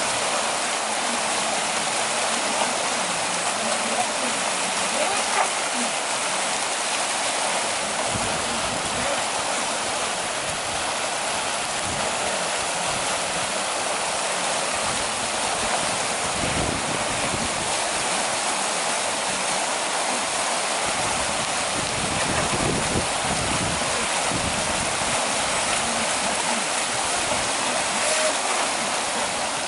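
Fast-flowing creek water rushing over rapids, a steady dense hiss, with occasional low rumbles partway through.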